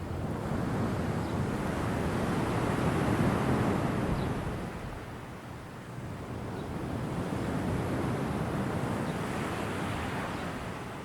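Ocean surf washing in as a steady rush that swells to its loudest a few seconds in, eases off around the middle, then builds again.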